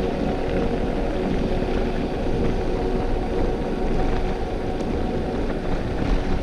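Mountain bike rolling fast down a gravel forest road: tyre crunch and rumble on the loose surface, with wind on the microphone and a steady hum underneath.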